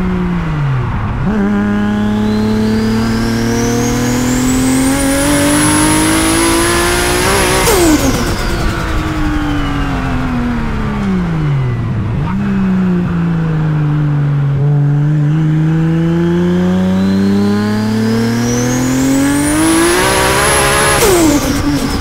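Big-single-turbo 2JZ straight-six of a 1000 hp MK4 Toyota Supra pulling hard through the revs twice, with a turbo whistle rising alongside the engine note. Each pull ends in a sudden lift-off with a brief fluttering chatter of turbo flutter, the first about eight seconds in and the second near the end. Between the two pulls the revs fall away.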